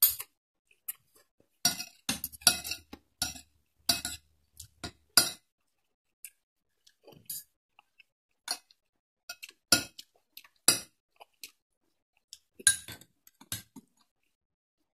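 Metal spoon and fork clinking against a plate and bowl while eating: irregular sharp clinks, some in quick bunches, with short quiet gaps between.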